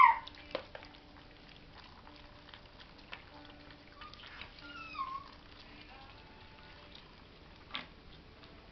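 Cairn terrier puppies eating from a shared metal dish. There is a loud high whine falling in pitch right at the start, a softer falling whine about five seconds in, and scattered clicks and taps from the dish as they eat, with a sharper tap near the end.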